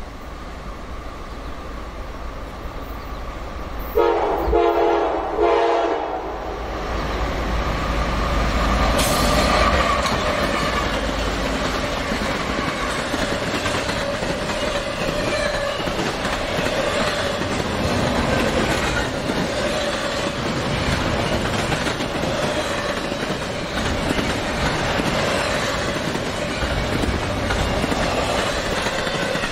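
Norfolk Southern diesel-led double-stack intermodal freight train approaching and passing. It sounds its horn about four seconds in, for about two seconds. The long string of stack cars then rolls by with a steady rumble and the clickety-clack of wheels over the rail joints.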